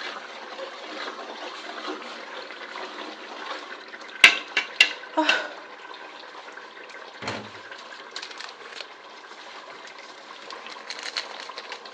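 Steady watery hiss of food cooking in a pot of stew, with a quick run of sharp metal clinks about four to five seconds in and a duller knock a couple of seconds later, as ingredients are handled and added.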